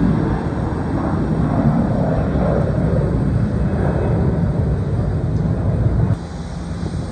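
Jet engine noise from an Airbus A321-231 climbing out after takeoff, a loud steady low rumble from its IAE V2500 turbofans. It drops suddenly about six seconds in to a quieter rumble.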